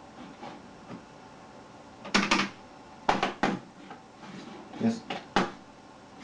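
Mouse button clicks on a computer, in quick pairs and threes like double-clicks, about two and three seconds in and again near the end.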